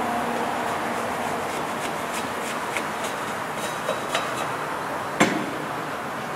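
Steady background hiss with scattered light clicks and taps, and one sharper knock about five seconds in.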